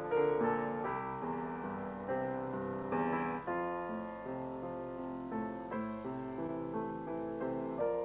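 Solo piano music: notes and chords struck one after another and left to ring and fade.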